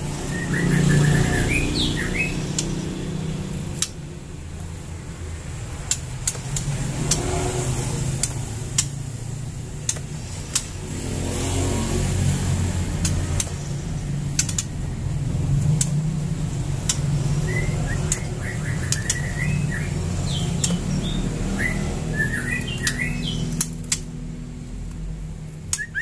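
Caged songbirds chirping in short bursts near the start and again through the last third; the cage holds white-rumped shamas and a yellow-vented bulbul. Scattered sharp clicks run throughout over a steady low hum.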